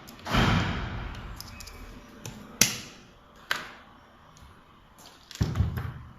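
Handling noises from working on a pneumatic tool's parts during reassembly: a rustling, scraping burst, two sharp clicks around the middle, then another short scraping burst near the end.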